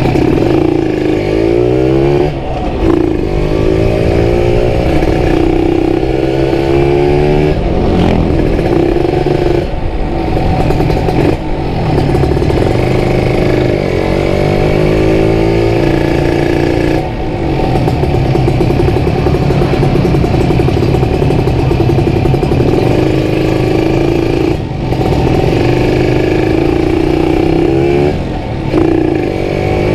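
Kawasaki Ninja RR 150 two-stroke single-cylinder engine with an aftermarket CMS exhaust, ridden and repeatedly revving up in rising sweeps. The revs drop briefly several times between sweeps, as at gear changes or when the throttle closes.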